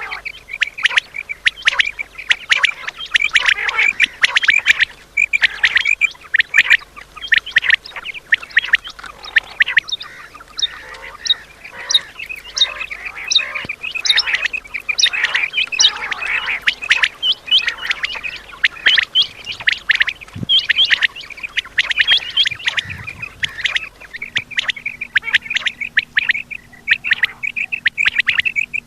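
Quail calling over and over, many short overlapping calls from several birds at once.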